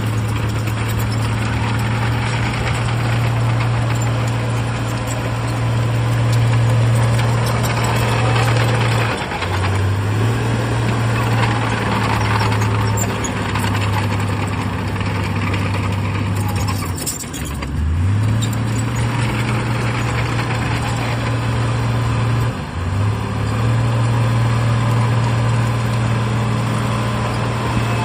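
Heavy diesel engine of a Shantui DH17C3 bulldozer running steadily. Its low note briefly drops and recovers three times, most deeply about two-thirds of the way through.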